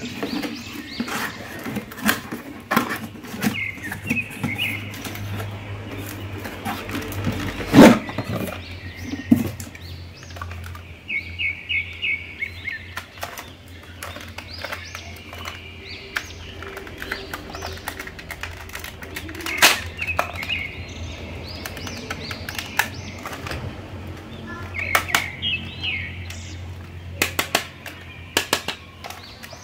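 Unboxing handling noise: a cardboard toy box and its plastic packaging rustling and clicking, and hands knocking and turning a plastic dancing Iron Man toy, with one loud knock about eight seconds in. Short bird chirps come several times in the background.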